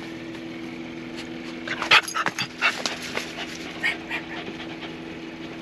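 A pet dog whimpering and giving short yips, excited by the smell of cooked chicken, with several quick calls about two seconds in and a few more later, over a steady low hum.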